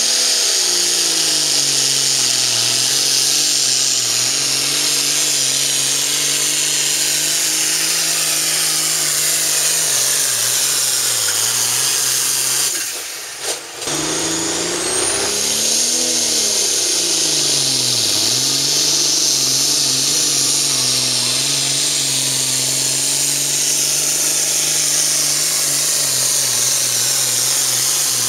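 Super farm class pulling tractors' turbocharged diesel engines running flat out under load as they drag the sled, loud, with plenty of high-pitched hiss over the engine note. The engine pitch sags and recovers several times as the tractors bog and pick up again, and the sound breaks off briefly about halfway through, where one pull gives way to another.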